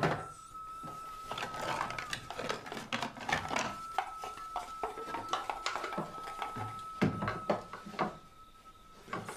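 Irregular clatter of small knocks and clicks, like dishes and utensils being handled, with a faint steady high tone underneath that stops shortly before the end.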